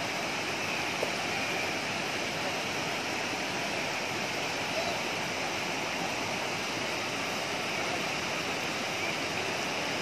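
Waterfall cascading over a wide rock face into rapids: a steady, even rush of water.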